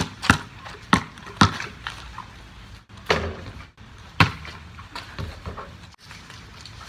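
Basketball bouncing on a wet concrete driveway: a series of sharp slaps at uneven intervals, several close together in the first second and a half, then more spread out after about three seconds.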